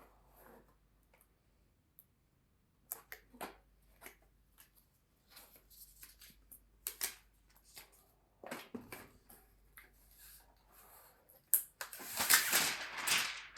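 Scattered clicks and short rustles of objects being handled, with a louder stretch of rustling near the end.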